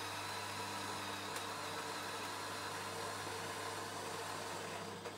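Motorised height-adjustable coffee spout of a Miele CM 7750 bean-to-cup machine travelling down to the glass, a steady electric motor hum that stops about five seconds in as the spout reaches its height.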